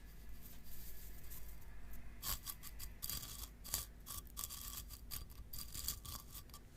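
Slime being squeezed and pressed, crackling and popping in quick, irregular clicks. The clicks grow thicker and louder a couple of seconds in and thin out near the end.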